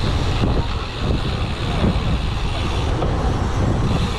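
Steady rumbling wind noise buffeting the microphone, with a constant low haze, as when riding a bicycle.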